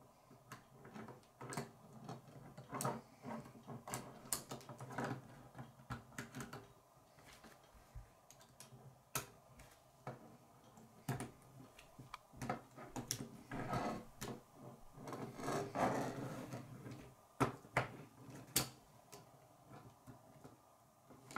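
K'nex plastic rods and connectors being handled and snapped together, with irregular sharp clicks and knocks against a wooden tabletop and a stretch of rubbing and rattling about two-thirds of the way in.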